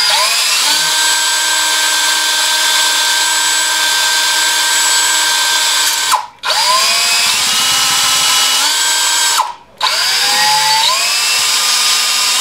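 Cordless drill boring into a brass bullet, running in three long bursts. At each start the motor's whine rises as it spins up, and partway through it steps up in pitch as the trigger is squeezed harder. The brass is hard going for the bit.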